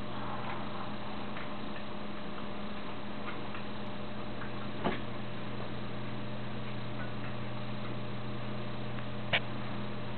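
Steady low hum of room tone with a few faint, scattered ticks, and two slightly sharper clicks about five and nine seconds in.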